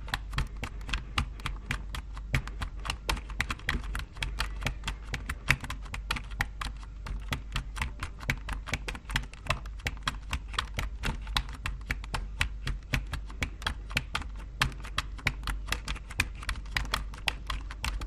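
Computer keyboard typing: a continuous run of quick keystrokes, several clicks a second, over a low steady hum.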